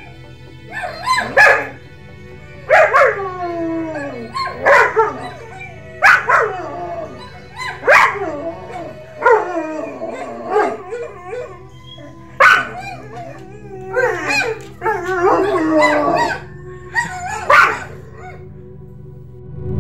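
German Shepherd dog giving about a dozen loud calls, one every second or two, each starting with a sharp bark and sliding down in pitch into a short howl, over a steady low hum.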